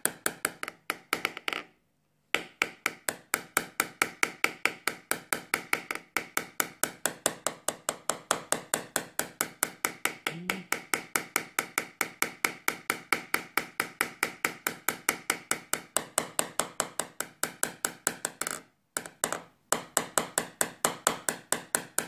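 Light, rapid hammer taps on a knockdown tool, about five a second, gently tapping down a raised ridge in a Ford Mondeo's roof panel during paintless dent repair. The tapping breaks off briefly about two seconds in and again near the end.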